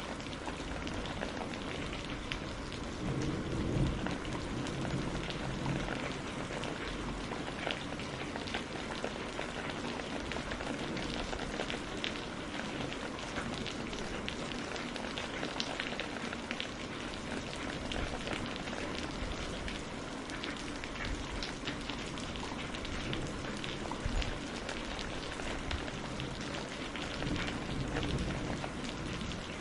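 Steady rain on a greenhouse, with many sharp single drop hits through it. A low rumble of thunder swells about three to four seconds in and comes back more faintly twice near the end.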